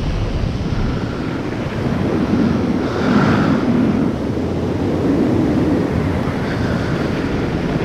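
Wind rushing over the microphone of a paramotor pilot in flight, a steady low rumble.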